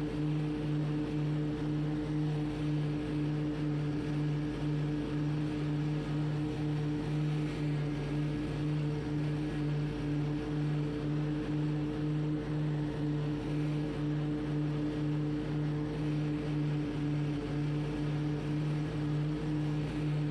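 Hustler Surfer Pro mower running steadily while cutting grass: an even engine drone with a slight regular pulse.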